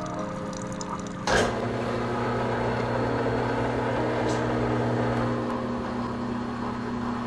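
Benchtop drill press running with a steady motor hum, starting sharply about a second in, as its bit drills pilot holes into a wooden board.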